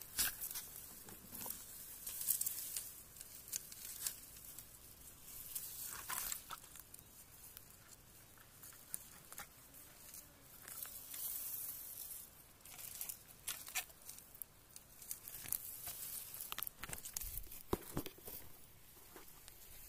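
Irregular rustling and crackling of dry grass and leaves close to the microphone, with scattered short taps and scrapes.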